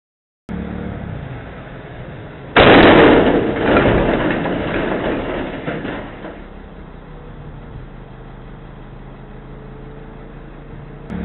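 A truck's engine running as it comes on, then about two and a half seconds in a sudden loud crash as the truck slams into the steel crash beam, the clatter dying away over about three seconds. The engine then runs on steadily, and near the end the engine sound comes up loudly again.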